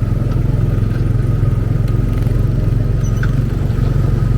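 Tomorrowland Speedway ride car's small gasoline engine running steadily with a loud, fast-pulsing drone, heard from inside the car while driving along the track.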